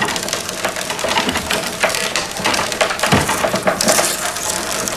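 Willow rods creaking and rustling as they are woven in and out of the upright stakes of a wicker basket: a dense run of small cracks and clicks.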